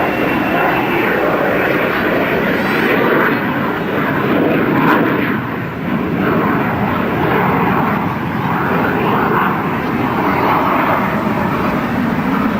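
Harrier jump jet's Rolls-Royce Pegasus turbofan engine, loud and continuous jet noise as the aircraft flies a slow approach. The level swells and eases, with a brief dip about six seconds in.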